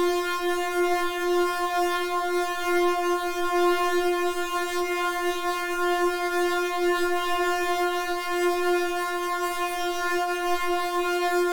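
Synthesizer line holding one buzzy, steady note rich in overtones, its loudness wavering slightly.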